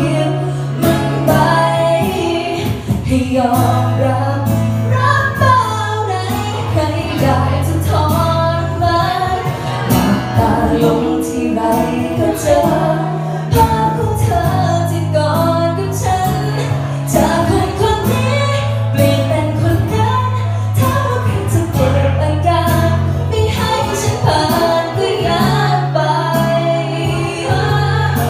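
A woman singing a Thai song into a handheld microphone over backing music with sustained bass notes that change every couple of seconds and a steady beat of high percussion ticks.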